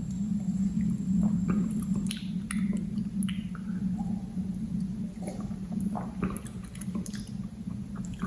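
Mouth sounds of someone tasting homemade cheongju (clear rice wine): small wet clicks, sips and lip smacks scattered through, over a steady low hum.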